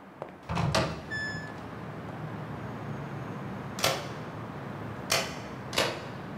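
A door opening with a thud, a short ringing tone about a second in, then three sharp clicks spaced a second or so apart over a steady low hum.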